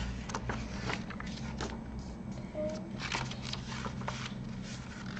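Pages of a book being handled and turned: a run of short papery rustles and scrapes over a steady low hum.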